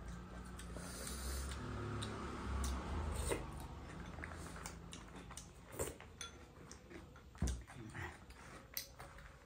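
Close eating sounds: chewing and wet lip smacks with scattered soft clicks, as biryani rice is eaten by hand off a banana leaf.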